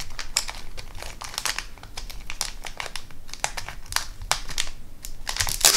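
Plastic packet of fishing hooks crinkling and crackling as fingers work open its flap, with a sharper crackle near the end.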